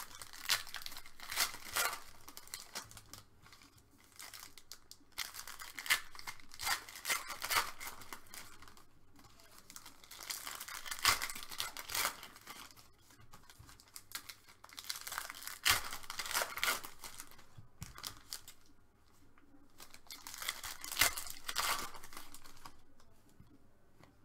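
Foil wrappers of trading-card packs being torn open and crinkled by hand, in about five bouts of crackling a few seconds apart.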